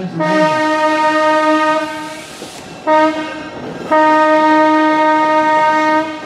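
Locomotive horn sounding one steady, bright note in blasts: a long blast ending right at the start, another long one, a short one about three seconds in, then a final long one near the end. Long, long, short, long is the standard grade-crossing warning.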